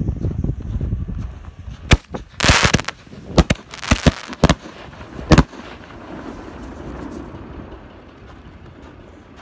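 Firework mine shells fired from a mortar rack, some ending in an aerial canister shell break. A low rumbling at the start eases off, then one sharp bang about two seconds in, a brief rushing burst, and a quick string of sharp bangs, after which a softer noise fades out.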